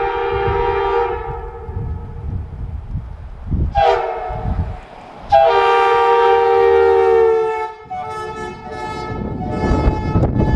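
Multi-chime train horn sounding a chord in a series of blasts: one fading out about a second in, a short toot around four seconds, a long blast from about five and a half to nearly eight seconds, then a chord of different pitch taking over. A low rumble runs underneath.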